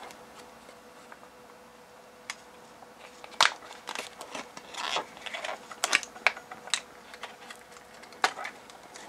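Scattered plastic clicks and rustling from hands working a lithium-ion cell pack in its plastic holder out of a cut-open plastic battery case, starting about three seconds in.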